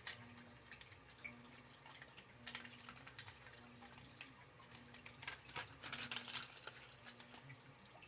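Quiet handling noise: faint scattered clicks and rustles of a packaged fishing lure being handled, a little louder twice, over a low steady hum.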